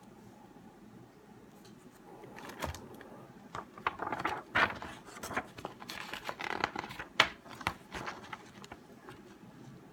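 Plastic wrapping crinkling and paper card stock rustling as they are handled, with several sharp clicks and taps, starting about two and a half seconds in and dying away near the end.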